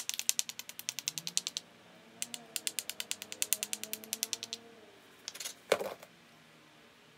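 Small abrading stone rubbed rapidly back and forth along the edge of a Flint Ridge flint biface, making a fast, even scratching-click rhythm of about seven strokes a second in two runs, grinding the edge to strengthen the striking platforms. A louder knock comes near the end.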